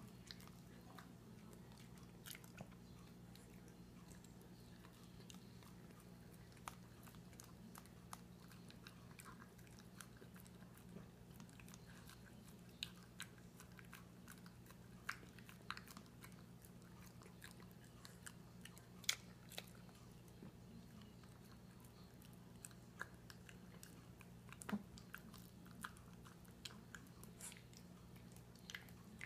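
Small dachshund eating soft rehydrated dog food and blueberries from a plastic slow-feeder bowl: quiet, irregular chewing with scattered sharp clicks, a few of them louder, over a faint steady hum.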